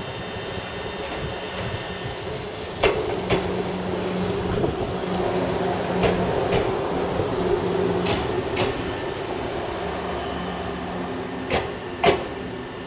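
Izukyu 100 series electric railcar rolling slowly into a station: its wheels click over a rail joint in pairs, four times, over a steady rumble and hum from the running gear.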